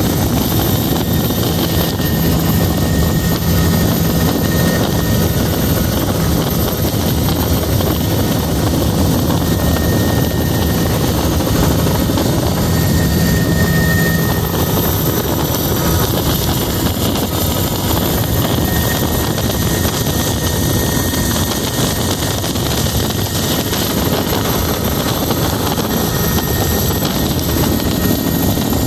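Helicopter in flight heard from inside the cabin: a loud, steady drone of engine and rotor, with a low hum that weakens about halfway through.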